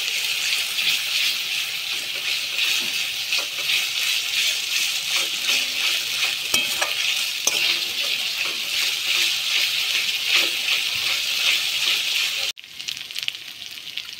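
Onion and ginger-garlic paste sizzling in hot oil in an aluminium kadai, stirred and scraped with a flat steel spatula, with many small scrapes and taps against the pan. Near the end the sizzle drops suddenly to a quieter level and carries on.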